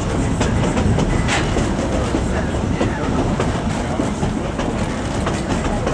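Narrow-gauge passenger car rolling along the track: a steady rumble of wheels on rail with frequent sharp, irregular clicks and rattles.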